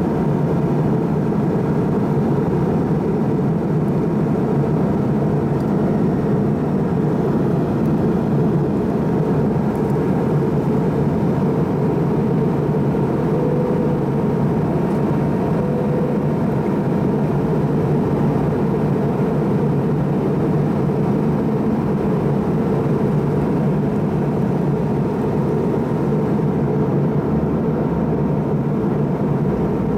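Cabin noise inside an MD-88 airliner on approach, with its rear-mounted Pratt & Whitney JT8D engines: a constant, even rumble with a thin steady tone running above it.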